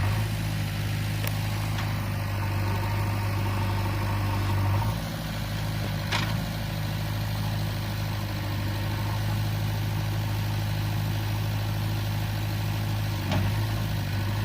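Diesel engine of a JCB 3DX backhoe loader running at a steady low drone, shifting slightly in tone about five seconds in, with two brief knocks, one near the middle and one near the end.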